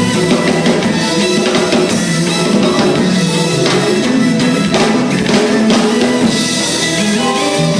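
Live rock band playing through a sound check: drum kit and guitars, loud and steady music with regular drum hits.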